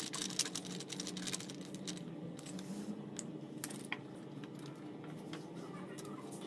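Light metallic clicks and taps of a screwdriver and terminal bolts as the cables are fastened to a small lead-acid motorcycle battery, quick and dense for the first two seconds, then sparser, over a faint low hum.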